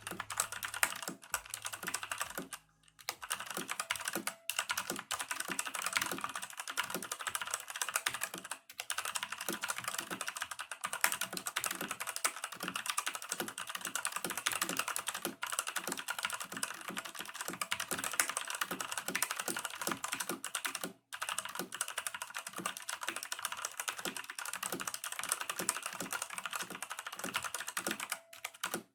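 Redragon Dark Avenger mechanical keyboard with Outemu brown switches being typed on fast and continuously: a dense stream of key clicks, with a few short pauses.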